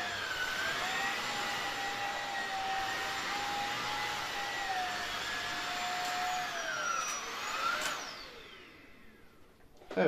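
Bosch Unlimited 7 cordless stick vacuum running with a steady high whine. About seven seconds in it is switched off and its motor winds down, the whine falling in pitch and fading out.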